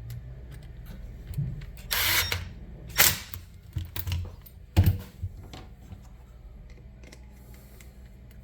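Parts and tools being handled: a brief scraping clatter about two seconds in, and sharp knocks about three and five seconds in, over a steady low hum.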